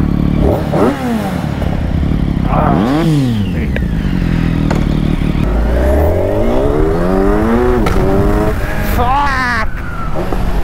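Kawasaki Ninja motorcycle engine, on stock exhaust with Black Widow headers, revving as the bike pulls away and accelerates. The pitch climbs and drops with each upshift, with the longest pull in the second half.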